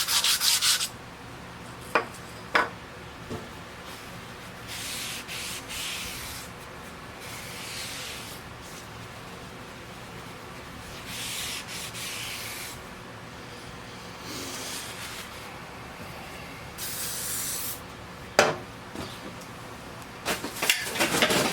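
Sandpaper rubbing by hand on a cast-iron table saw top wet with WD-40, to take off surface rust. Fast strokes at first, then short spells of rubbing with quieter gaps and a few sharp knocks, and fast rubbing again near the end.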